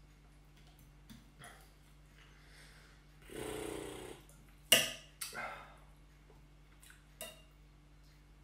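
Knife and fork working on a ceramic plate while cutting apart a smoked fish: a few light taps, then a rasping scrape about a second long, a sharp clink of metal on the plate just after it, a shorter scrape, and one more clink near the end.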